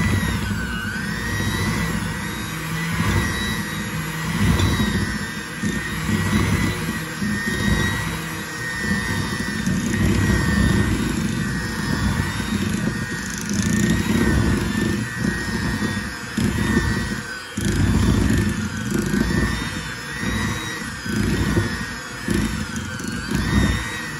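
Electric hand mixer running steadily, its twin metal beaters churning a thick peanut butter and cream cheese mixture in a glass bowl. The motor's high whine wavers and dips in pitch now and then over a lower churning.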